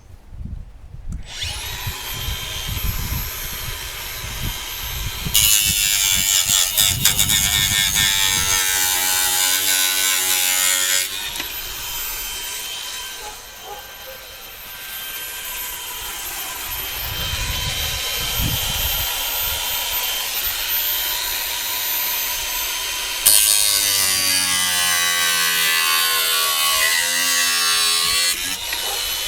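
Electric power grinder spinning up and taking the rough edges and corners off a metal plate. The motor whines steadily, with two long passes of loud, harsh grinding, the second near the end, and a quieter stretch between them.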